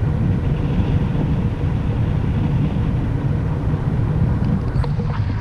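Steady wind rushing over the microphone in flight under a paraglider, a loud low rumble with no engine.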